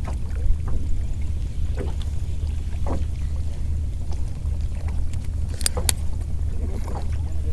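Boat engine running steadily at low speed, a low drone, with scattered faint ticks and two sharp clicks a little before six seconds in.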